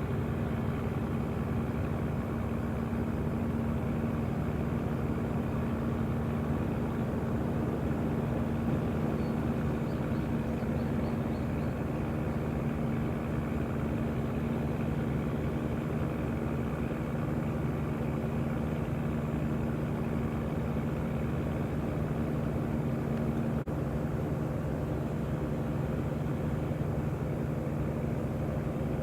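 A steady engine hum with a constant low drone, unchanging throughout, and a single faint click about two-thirds of the way through.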